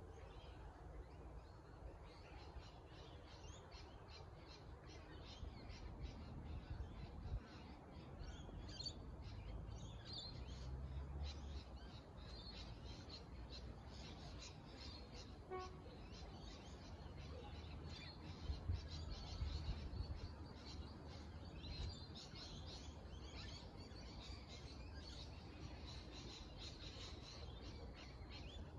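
Small birds chirping and calling in many short, high notes, faint, over a low rumble that swells twice.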